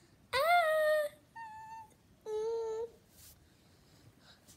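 A high-pitched voice giving three short wordless sung or hummed sounds for a sock puppet: the first about half a second in slides up and then holds, the second is higher and quieter, and the third comes about two and a half seconds in.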